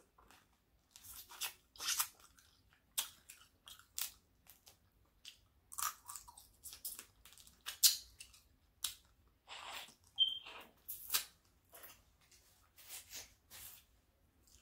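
A person chewing and crunching seafood-boil food close to the microphone: a quick, irregular run of crunches and clicks, with a brief high squeak about ten seconds in.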